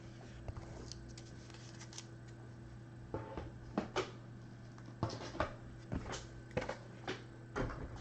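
A string of light clicks and rustles from objects being handled on a tabletop, starting about three seconds in, over a faint steady electrical hum.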